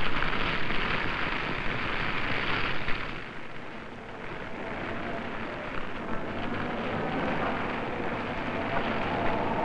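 Burning mallee scrub crackling and rushing, loud for about three seconds, then giving way to a quieter, steady noise.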